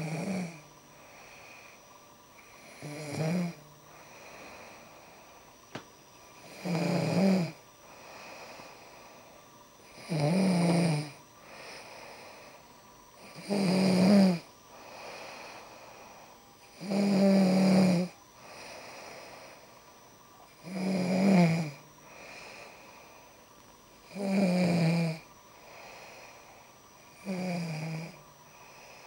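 A woman snoring in her sleep: a loud snore about every three and a half seconds, each lasting about a second, with softer breathing between.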